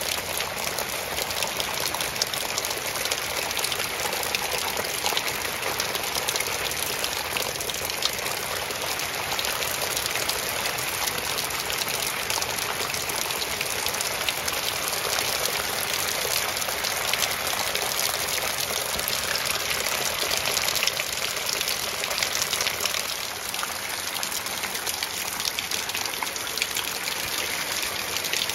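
Heavy rain pouring onto a waterlogged paved path, drops splashing into standing water in a steady hiss.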